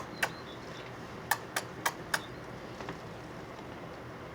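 Kissing smacks: quick sharp clicks, one at the start, then a run of four about a second in at roughly four a second, and a faint one near the end.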